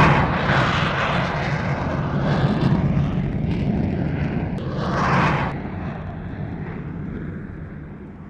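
A deep, steady engine-like rumble, like a large craft flying past. Whooshing swells come near the start and about five seconds in, then it fades toward the end.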